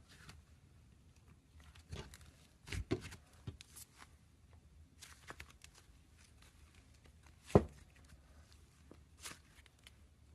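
Slime being squeezed and poked by hand: scattered wet clicks and crackles at irregular intervals, with the loudest pop about three-quarters of the way through.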